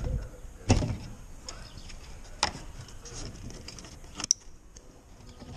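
Hand tools clicking and knocking against fasteners and panels under a car: a few sharp knocks with light handling noise between them, the loudest about a second in and others near two and a half and four seconds.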